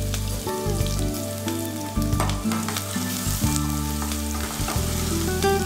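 Chopped garlic and ginger sizzling in hot oil in a nonstick frying pan, with a steel ladle stirring and scraping through them in the second half. Background music with held low notes plays underneath.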